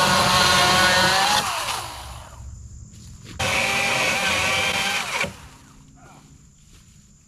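Cordless power saw running under power. It winds down with a falling pitch about a second and a half in, then runs again for nearly two seconds before stopping.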